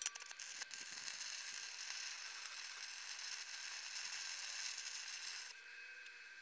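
Stick-welding arc crackling and hissing steadily as the electrode burns, from a budget stick welder. It starts suddenly at the strike and breaks off about five and a half seconds in.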